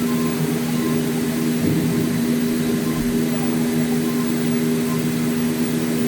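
CNC plate sawing and milling machine running with a steady hum made of several constant tones.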